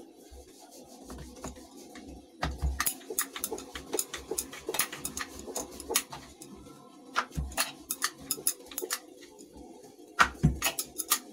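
Wooden rolling pin rolling out a large round of maida dough on a kitchen counter, with many quick, irregular light clicks and knocks.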